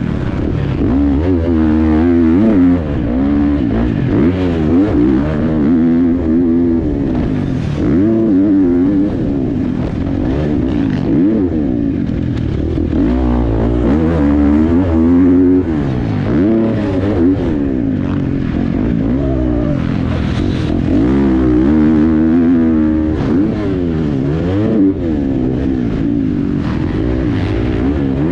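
Motocross dirt bike engine ridden hard around a track, revving up and falling back over and over as the throttle opens and closes.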